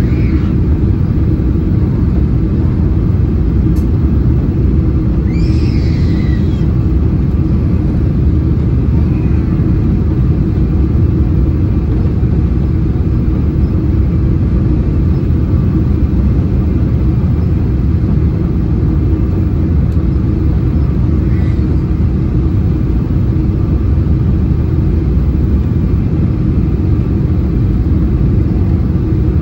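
Steady cabin rumble inside a Boeing 777-300 on approach, heard from a window seat behind the wing: engine and airflow noise with a steady hum underneath.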